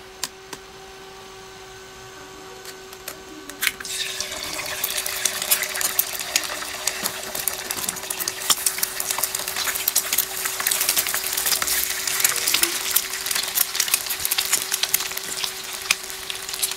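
An egg cracked into hot oil in a frying pan on a homemade induction heater, then frying: sizzling and crackling that starts about four seconds in and grows louder. A steady hum runs underneath.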